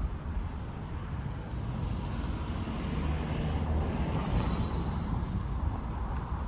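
Road traffic going by, a steady rush of tyres and engines with wind buffeting the microphone; one vehicle swells louder past the middle and fades.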